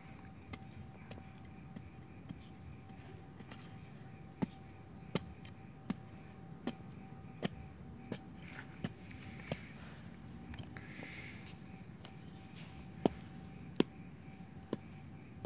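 Crickets chirping steadily in a fast pulsing trill, with scattered short knocks of soil being dug out of a hole by hand; two sharper knocks come near the end.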